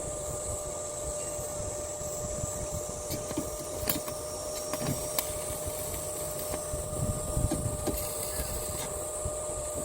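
DC 12 V electric trap line hauler running: a steady motor whine over low rumbling, with scattered light clicks.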